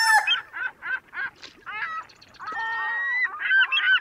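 The tail of a rooster's crow, then a run of short honking bird calls, with one longer, slightly rising call in the middle and a quick string of calls near the end.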